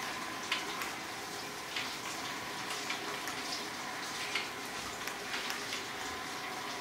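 LG Roboking robot vacuum running: a steady hiss-like whir with a faint steady hum, and small clicks now and then.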